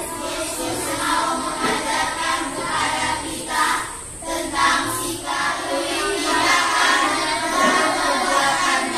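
A class of children reading a text aloud together in unison, with a short pause about four seconds in.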